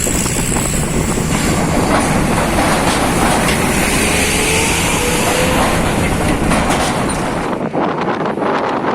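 Loud rumbling and clattering of heavy vehicle traffic, with scattered metallic clanks. The sound thins out suddenly near the end.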